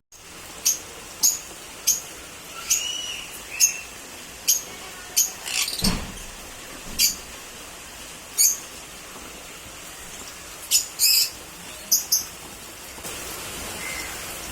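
African lovebirds in an aviary giving short, sharp, high-pitched chirps at irregular intervals, about fourteen calls, some in quick pairs.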